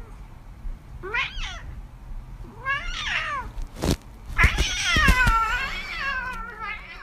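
A cat meowing: two short meows about one and three seconds in, then a long drawn-out meow, the loudest, in the second half. A brief sharp click comes just before the long meow.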